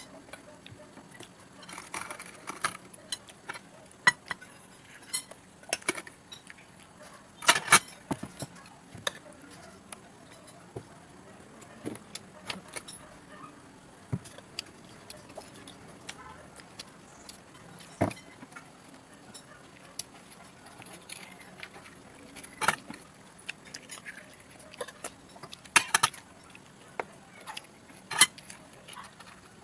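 Irregular clicks and clinks of eating by hand: spiny sea urchin shells handled and cracked open, and rice picked from a ceramic plate. A few sharper clicks stand out, one about a third of the way in and two near the end.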